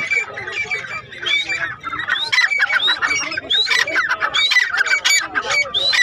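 Several caged francolins calling over one another in a chorus of short, rising call notes, repeated many times.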